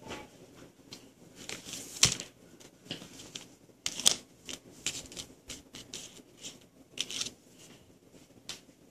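Handling noise of a resin-coated picture magnet board and small resin charms: rustles and a string of sharp clicks and taps, loudest about two and four seconds in, as the board is turned over on paper and the charms are picked up.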